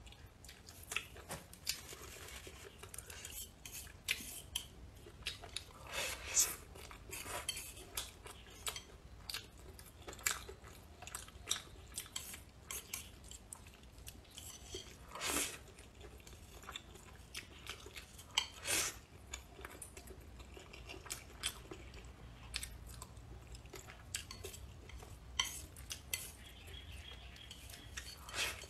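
Close-up eating sounds: chewing and mouth smacks mixed with chopsticks clicking and scraping against the bowl, in irregular sharp clicks with a few louder ones scattered through.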